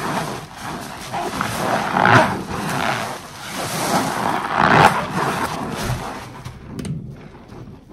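Large foam sponge squeezed and kneaded by rubber-gloved hands in thick dish-soap suds: wet squelching and crackling foam that swells with each squeeze, loudest about two and five seconds in, and dies down near the end.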